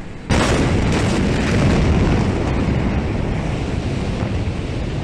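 Huge ammonium nitrate explosion: a sudden loud blast about a third of a second in, then a steady rumbling, rushing noise that stays loud.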